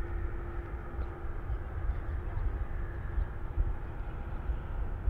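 Boeing 787-8 jet engines running steadily at a distance, with a faint steady hum that fades out about halfway through, over a gusty low rumble of wind on the microphone.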